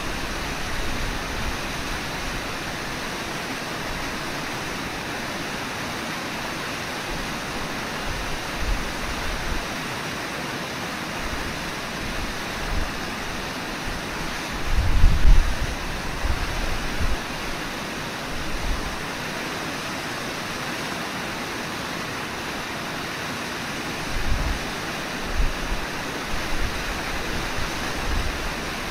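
Steady rushing of the Brooks River's flowing water. A few short low gusts of wind buffet the microphone about halfway through and again near the end.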